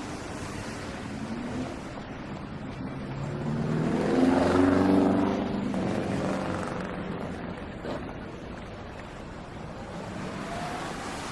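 A motor vehicle drives past: its engine note grows to a peak about four to five seconds in and then fades away, over a steady background hum of city traffic.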